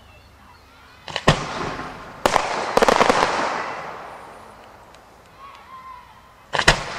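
Aerial firework shells bursting: a sharp bang about a second in, and another a second later. A dense burst of rapid crackling follows and fades away over a couple of seconds. Another sharp bang comes near the end.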